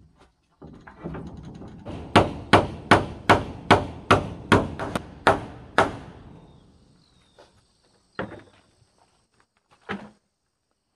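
A hammer driving a nail into wood: a run of about ten quick, even blows, a little under three a second. It is followed by two separate knocks near the end.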